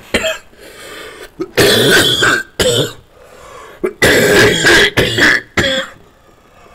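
A man's coughing fit: several hard, rough coughs in clusters, with ragged breaths between them.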